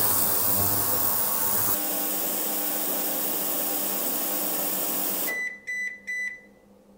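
Vevor digital ultrasonic cleaner running with a steady hiss and hum, then cutting off about five seconds in as its timer runs out and beeping three times to signal the end of the cleaning cycle.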